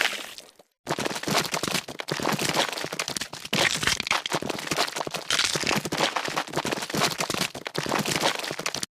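Gore sound effect of bones cracking and crunching: a short crack at the start, then a long, dense run of rapid crackling crunches that cuts off suddenly near the end.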